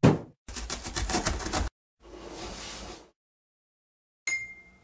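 A string of cartoon sound effects: a sudden thud with a falling sweep as a box lands, a rapid rattle of about ten clicks a second for just over a second, a softer whooshing hiss for about a second, then a short bright ding near the end.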